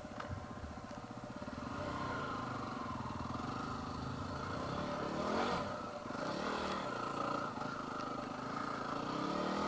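Yamaha WR250R's single-cylinder four-stroke engine running steadily, with the revs rising and falling about halfway through and again near the end.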